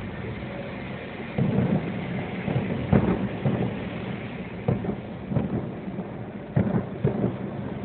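Distant fireworks display bursting: a string of about seven irregular booms, the loudest about three seconds in and again near the end.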